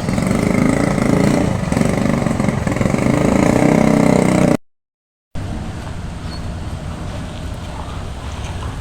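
Motor vehicle engine running steadily. About halfway through, the sound drops out completely for under a second, then a quieter steady engine hum continues.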